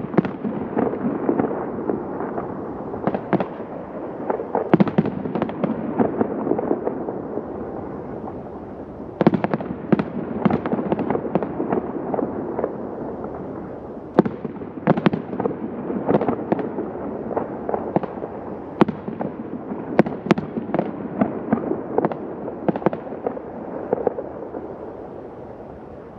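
Professional aerial fireworks: a dense run of shell bursts, sharp bangs and crackles over a continuous rumble, thinning out and fading near the end.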